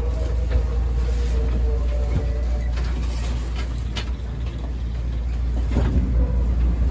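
Cabin of a former Tokyo Metro 6000-series electric train slowing to a stop at a platform: a steady low running rumble, a humming tone that fades out about two seconds in, and a few light knocks and clicks.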